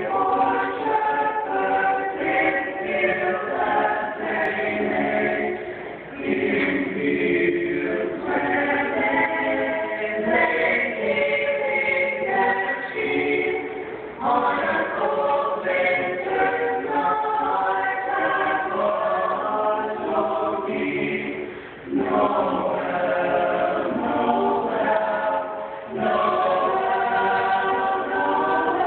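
Mixed choir of boys' and girls' voices singing a Christmas carol a cappella, with short breaks between phrases.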